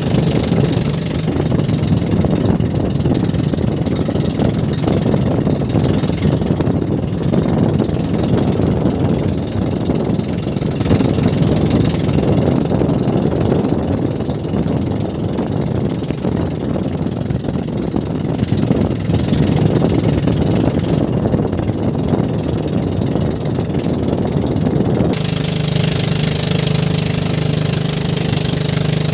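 Boat engine running steadily, with a change in its note near the end.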